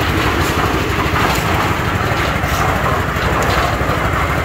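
Shinmax 7.5 hp gasoline engine on a new cement mixer running steadily, a fast, even low rumble as it drives the mixer.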